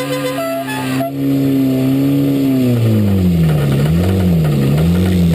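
Race car engine heard from inside the cabin, running at a steady speed, then dropping about halfway through and rising and falling at low revs as the car is driven slowly. A few short high notes sound over it in the first second.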